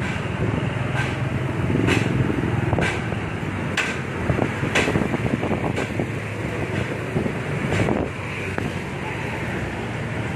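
Motorcycle engine running and road and wind noise while riding slowly in traffic, with sharp short clicks about once a second.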